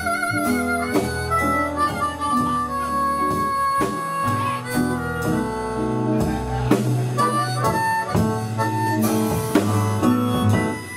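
Live blues band in an instrumental passage: a harmonica carries the lead with long held notes over guitar, bass and drums.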